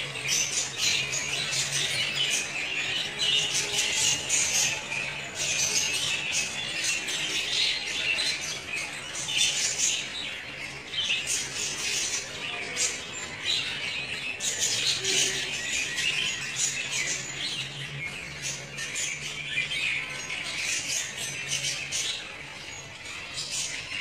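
A flock of budgerigars chattering and squawking together in a continuous, dense high twittering.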